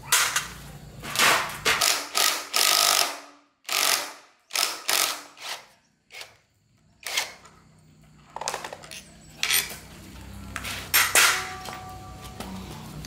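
Hand-tool work on the old petrol generator's metal parts: a series of short, sharp rasping and clicking strokes at irregular intervals, with a couple of abrupt breaks.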